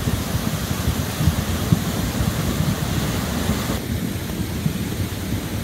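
Floodwater rushing down a washed-out channel after heavy rain, with rocks knocking together as the current rolls them: a steady rush over a dense, low, thumping rumble. About four seconds in the hiss drops away, leaving a duller rumble.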